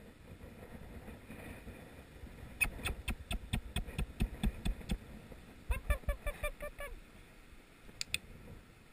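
Footsteps crunching on dry grass and leaves. A brief, rapid pitched chatter comes about six seconds in. Near the end comes the quick double click of a box training clicker, marking the puppy's return to heel.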